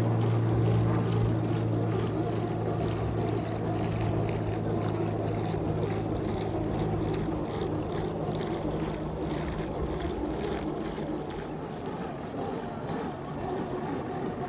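A steady low motor-like hum, fading out about eleven seconds in, over a continuous wash of water and wind noise.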